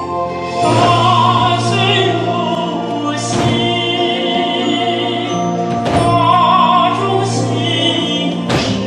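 A song with singing over an orchestral accompaniment, with a heavy percussive hit about every two and a half seconds.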